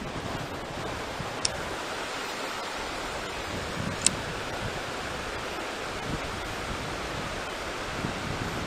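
Small river flowing over shallow rocks: a steady rush of water, with two brief clicks, one about a second and a half in and one about four seconds in.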